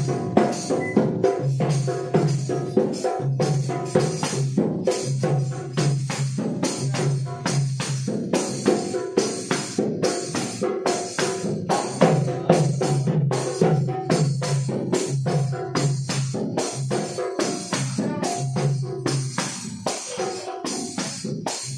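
Instrumental music: a fast, dense rhythm of drum strikes over steady held low notes, with no singing.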